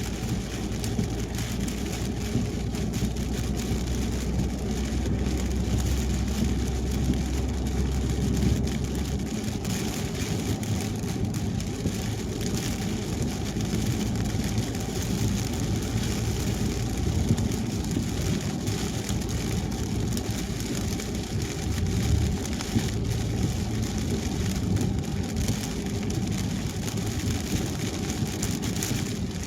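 A car driving on a wet highway in the rain: steady tyre and road noise, with rain on the car. A low steady hum from the car stops about nine seconds in.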